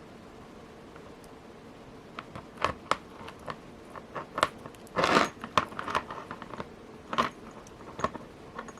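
Light clicks and rustling from handling a strung bracelet of porcelain beads and its thread while a knot is tied, with a louder, longer rustle about five seconds in.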